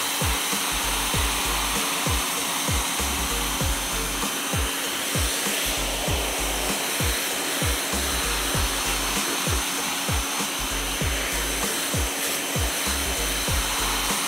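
Pressure washer jet spraying a tire, a loud steady hiss. Background music with a steady kick-drum beat, about two beats a second, runs underneath.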